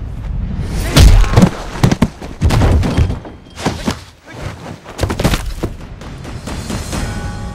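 Film fight sound effects: a rapid, irregular series of punches, kicks and body blows landing, some of them heavy thuds, over film music. A held musical chord comes in near the end.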